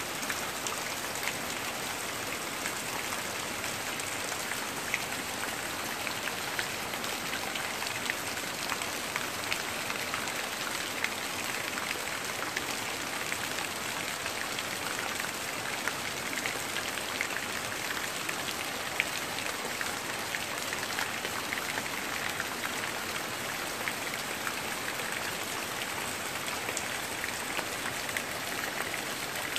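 Steady heavy rain falling on trees and the ground, many single drops ticking through the even hiss.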